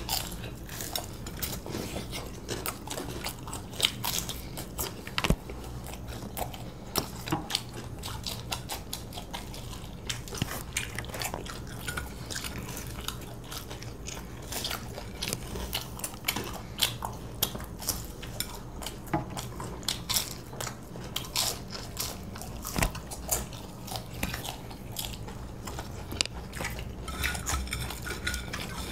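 Two people eating fried chicken chops by hand: biting and chewing, with many scattered sharp clicks of fingers and food against plates, over a low steady hum.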